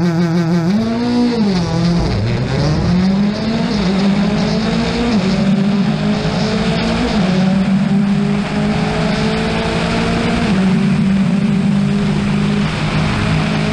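Rally car engine heard from inside the car, revving up and dropping back about a second in. It then pulls up and eases off a few times before holding a fairly steady note.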